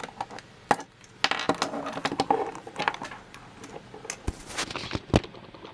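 Metal airsoft AEG gearbox shell being handled and turned over: scattered clicks and knocks with a stretch of rubbing and clatter, and sharp knocks about three-quarters of a second in and again near the end.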